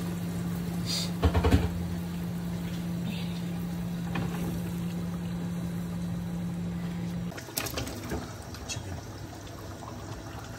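Chicken and potato curry simmering in a pan on a gas stove. A steady low hum runs under it and stops about seven seconds in, with a brief knock about a second and a half in.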